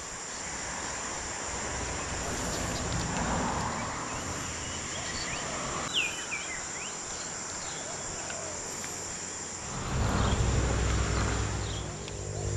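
Steady high-pitched insect chorus. A short chirp comes about six seconds in, and a louder low steady hum joins at about ten seconds.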